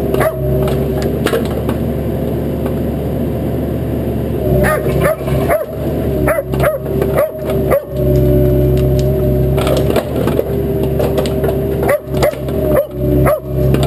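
Bobcat mini excavator's diesel engine running steadily, and from about four seconds in, brush and small trees cracking and snapping many times as the machine tears them out.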